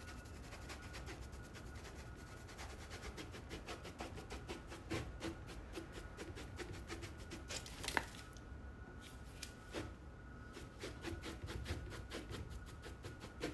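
Wide soft brush sweeping back and forth over a painted canvas, a fast run of short rubbing strokes, brushing away loose flakes of gold leaf that did not stick to the size. One sharper tap about eight seconds in.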